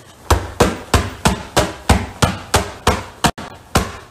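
A pillow on a couch being punched over and over with the fists: a run of about eleven sharp thumps, roughly three a second, with a slightly longer gap before the last one.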